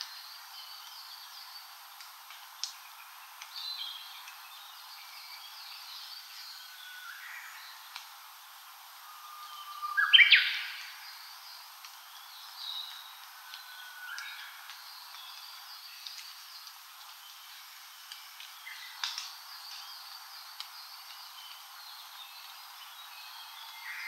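Wild birds singing in a forest: one loud song about ten seconds in, a short flat whistle followed by a quick rising flourish, with fainter calls and snatches of song from other birds throughout.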